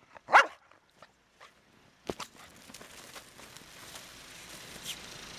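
A dog gives a single short bark about half a second in, then faint crunching of steps in snow over a steady background hiss.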